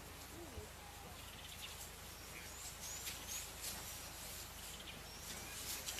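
Faint bush ambience with a few short, high chirps from small birds scattered through it.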